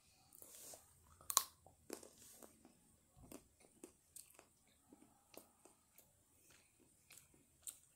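A child biting into and chewing a piece of Feastables chocolate bar, faintly: a sharp snap about a second and a half in, then a scatter of small wet clicks and smacks of chewing.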